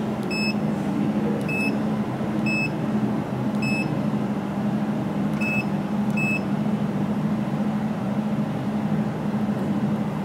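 Six short, high touchscreen key beeps, one for each key pressed on a jewelry laser welder's control panel, roughly a second apart. They sound over the machine's steady running hum, which is the louder sound.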